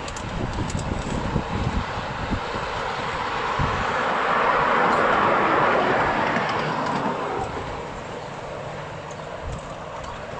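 A long train of miniature ride-on railway carriages rolling along the track, the wheels rumbling and knocking on the rails. A broad rushing noise swells about four seconds in and eases off near the end.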